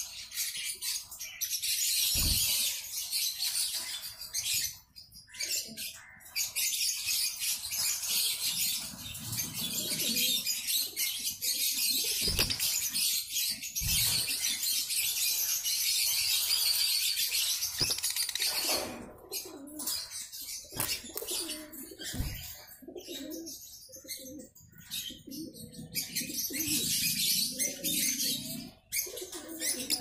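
A flock of caged African lovebirds, Fischer's and masked, chattering with dense, high-pitched chirping that thins out in the second half, with wings flapping and a few low thumps.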